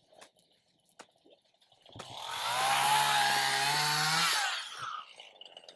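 Chainsaw revving up about two seconds in and running at high speed through a cut for nearly three seconds, its pitch sagging slightly under load before it drops back.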